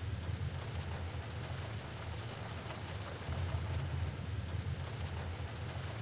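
Steady low rumble and hiss of a vehicle in motion, heard from inside the cabin.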